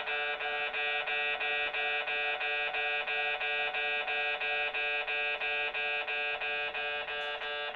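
Kintetsu station-yard railway level crossing alarm sounding: an unusual electronic warning chime of several stacked bell-like tones, repeating in a fast, even pulse without a break.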